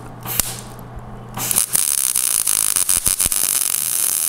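MIG welder laying a rosette (plug) weld through a drilled hole to fuse two layers of sheet steel. The arc strikes about a second and a half in and keeps up a steady crackling hiss with sharp pops. Before that there is only a low electrical hum.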